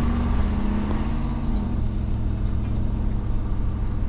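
Car cabin noise while driving: a steady low engine and road rumble.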